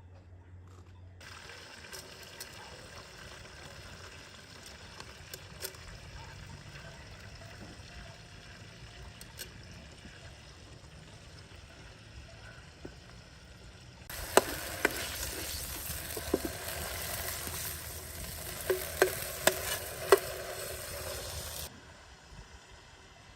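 Food sizzling in hot oil in a pan, with sharp clinks of a utensil as it is stirred. The sizzle turns louder about two-thirds of the way through and stops abruptly near the end.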